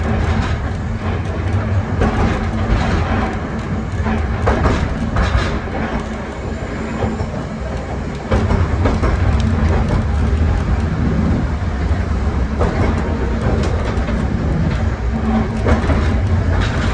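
A 1928 Kawasaki-built wooden Hankai tram with nose-suspended traction motors, running along street track with a steady low rumble and scattered clacks from the wheels on the rails. The rumble gets suddenly louder about eight seconds in.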